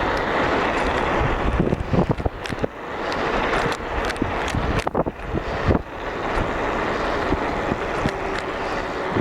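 Wind buffeting the microphone and bicycle tyres rolling on a paved road while coasting downhill, with scattered sharp clicks throughout.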